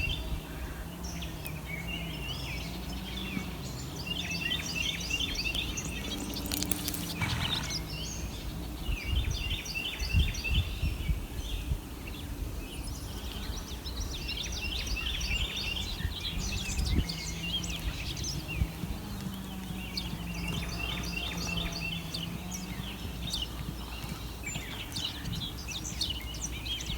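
Songbirds singing, short chirping phrases repeating every few seconds, over a steady low hum and rumble.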